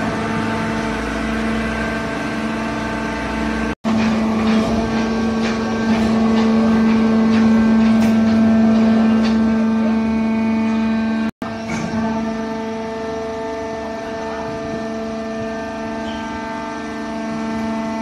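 Horizontal cardboard baler running: its electric motor and hydraulic pump give a steady, loud hum with a clear pitched tone, under some light clicking. The sound cuts out abruptly twice, about a fifth and two-thirds of the way through, and is a little louder between the two breaks.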